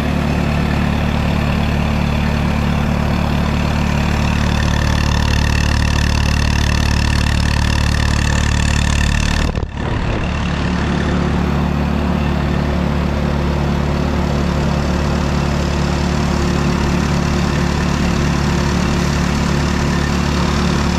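Four-cylinder Hercules ZXB engine of a military Hobart generator running steadily, with a brief dip in the sound a little before the middle.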